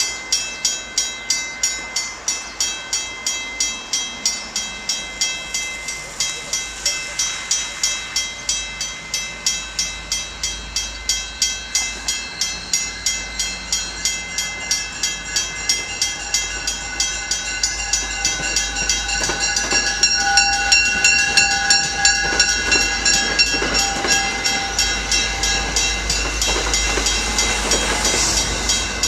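Railroad crossing bell ringing steadily at about two strokes a second. In the second half an MBTA commuter rail train approaches, sounding its horn with held tones, and its rumble grows louder until it reaches the crossing near the end.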